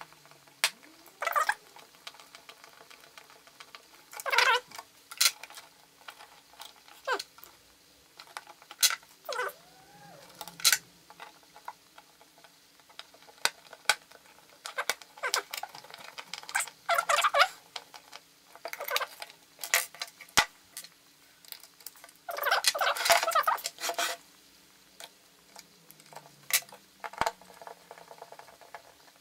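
Small screws being turned in by hand with a screwdriver, giving irregular short squeaks and clicks. The longest squeak lasts over a second, about 23 seconds in.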